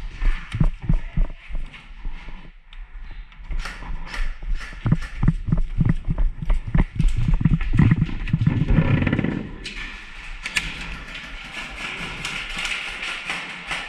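An irregular run of thumps and knocks, like hurried footsteps with gear knocking, for about ten seconds, then a steady hiss.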